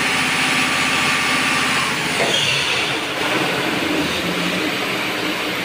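Clarke diesel fire pump engine running with an even firing beat on a test run after a cooling-system repair, then shut down about two seconds in. A steady whirring noise carries on after it stops.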